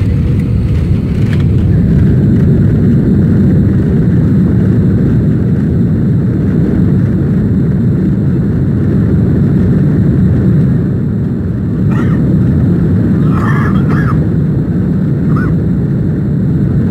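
Loud steady low rumble inside an airliner cabin as the plane rolls along the runway after landing: the engines and the wheels on the tarmac.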